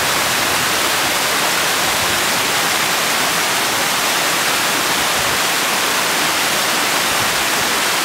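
Waterfall heard close up: water pouring down a rock face and splashing onto the rocks below, a loud, steady rush of noise.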